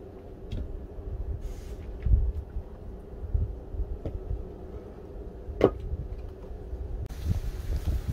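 Split firewood logs being set down and stacked, wood knocking on wood a few times, the sharpest knock about five and a half seconds in, over a steady low rumble.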